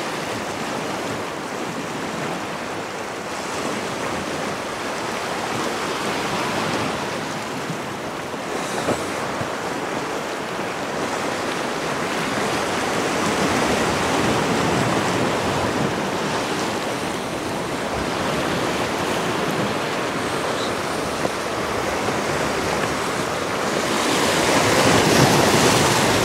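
Small sea waves washing against a rocky shore, a steady rushing with some wind on the microphone, swelling louder near the end.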